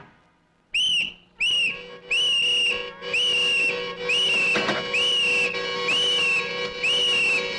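Whistling: after a brief silence, a run of short, identical high whistle notes, each swooping up and sagging slightly, a little more than one a second, over a faint steady low drone.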